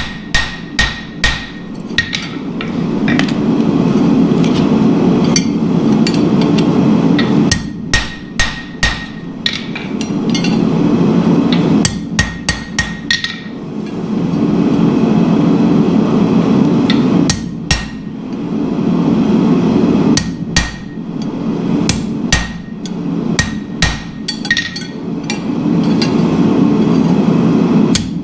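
Hand hammer striking hot steel on an anvil while forging tong jaws, in groups of blows about two a second with a light anvil ring. Between the groups there is a steady deep rushing noise.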